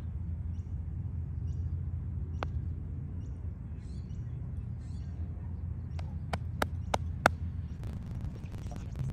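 Outdoor ambience on a golf green: a steady low rumble with faint bird chirps. A putter strikes a golf ball with a single click about two and a half seconds in, and a quick series of sharper clicks follows around six to seven seconds in, the last one the loudest.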